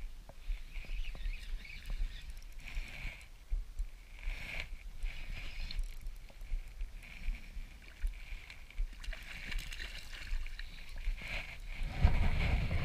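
Shimano Stradic spinning reel being cranked during a lure retrieve, a soft whirring that comes and goes in uneven spells, over light water lapping. Near the end a gust of wind buffets the microphone.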